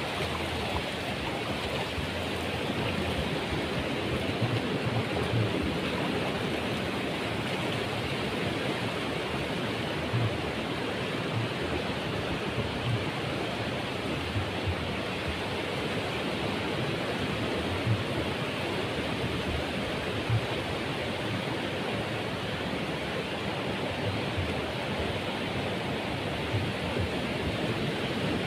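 Steady rush of small surf waves washing over a shallow, flat beach, with a few brief low thumps now and then.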